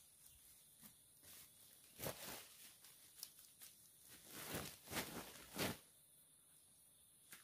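Rustling and handling sounds as hands of green bananas are moved and laid out on a plastic sheet among cut leafy branches. There are several louder rustles about two seconds in and again between four and six seconds in.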